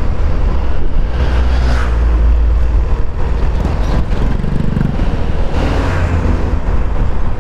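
Wind buffeting the microphone and road noise from an automatic scooter riding along a highway, with the deep rumble of large lorries passing close in the other lane about four to six seconds in.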